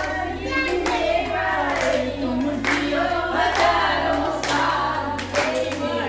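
Group of adults and children singing together and clapping along, over music with a steady bass line.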